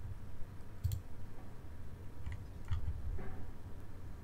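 Computer mouse clicking: a quick double click about a second in, then a few single clicks, over a low steady hum.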